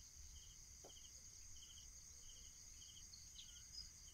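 Near silence with a faint insect chorus: a steady high-pitched drone and a short chirp repeating about every half second, with a few faint higher chirps near the end.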